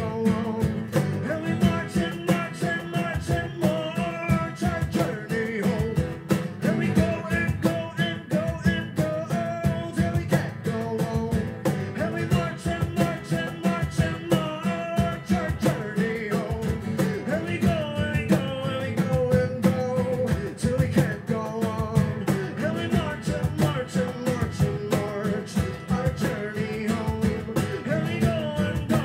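A man singing with a strummed steel-string acoustic guitar, played live.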